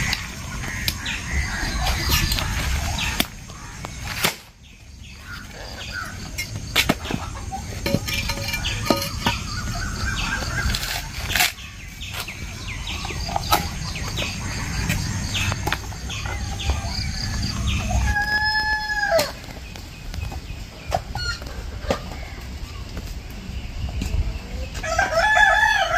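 A rooster crowing once about two-thirds of the way through and again starting near the end. In between come scattered sharp knocks and cracks from dried coconuts being broken open and their shell halves handled.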